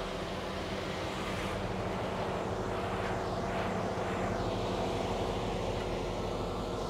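Mercedes-Benz S550's twin-turbo V8, fitted with catless downpipes and a resonator delete, idling steadily.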